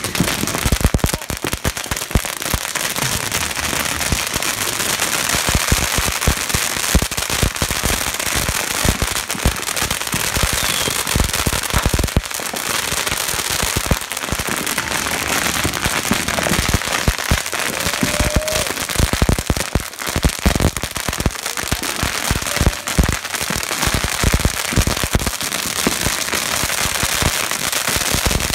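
Strings of firecrackers going off in an unbroken, rapid crackle of bangs, with no let-up.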